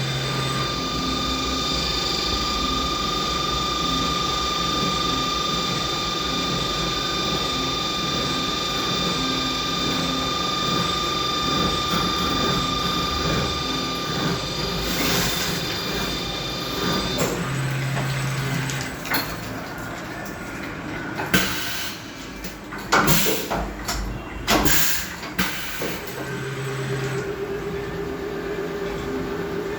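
CNC machining center running: a steady spindle whine with machining noise that stops about halfway through, followed by a few sharp clanks and then a lower steady hum near the end.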